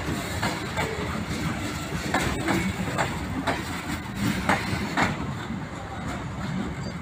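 Freight train wagons and the brake van rolling past, their wheels clacking over rail joints over a low rumble. The sound eases off near the end as the last vehicle goes by.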